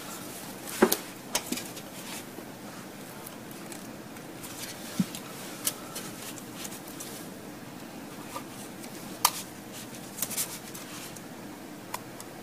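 Scattered small clicks and taps of plastic being handled: a car radio faceplate and its ribbon cable turned and fitted in the hands, over a steady low background hum.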